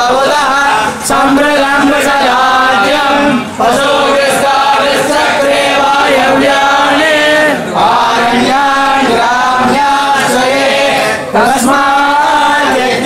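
Several men chanting a hymn together in unison, a continuous sung recitation broken by short pauses for breath every few seconds.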